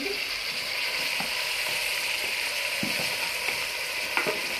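Raw chicken pieces sizzling in hot oil with browned onions and ginger-garlic paste in a steel pot, a steady frying hiss with a few light knocks.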